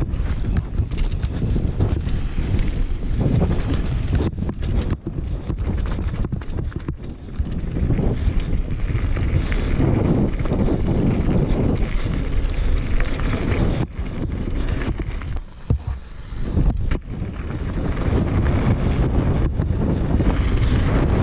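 Wind buffeting the microphone during a fast downhill mountain-bike descent, over the steady rumble of knobby tyres rolling on a dirt and gravel trail, with scattered clicks and knocks from the bike rattling over the ground.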